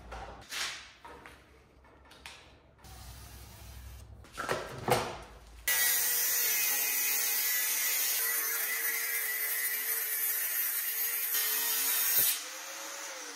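A few faint scrapes and knocks of handling, then an electric power tool starts abruptly about six seconds in. It runs steadily with a high hiss for about six seconds and is switched off near the end, its pitch falling as it spins down.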